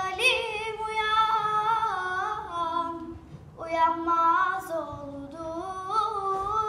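A young girl singing a Turkish folk song solo and unaccompanied, with held, ornamented notes. She sings two phrases, with a short breath about three seconds in.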